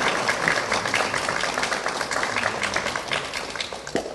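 Audience applause, many hands clapping together, starting to die away near the end.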